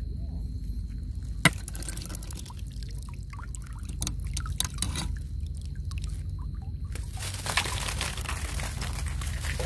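Shallow water splashing and trickling, with a sharp click about one and a half seconds in. From about seven seconds in the splashing turns into a denser, steady rush.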